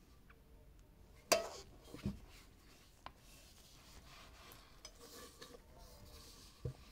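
Gloved hands handling a glass perfume bottle and the metal lid of its tin-can box: a sharp clink a little over a second in, a softer knock about two seconds in and another near the end, with faint rubbing and small clicks between.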